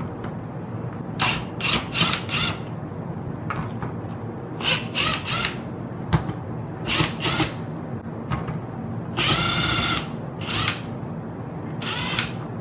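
Cordless power driver running in short trigger bursts, mostly in quick runs of two to four, with one longer run of nearly a second about two-thirds through, backing screws out of a dishwasher door panel.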